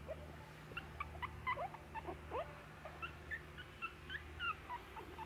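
Very young Cairn Terrier–Pekingese mix puppies squeaking and whimpering: many short, high chirps sliding up and down in pitch, coming thick and overlapping, with a low steady hum beneath.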